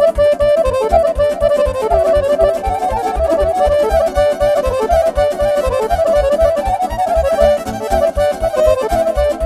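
Live instrumental Romanian sârbă dance music: accordion and violin play a fast melody over a steady, quick bass beat.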